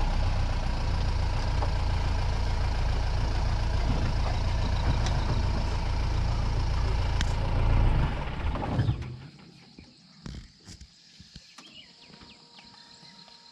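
A moving vehicle's steady, loud rumble of engine and road noise. About nine seconds in it falls away suddenly to quiet, with a few soft knocks.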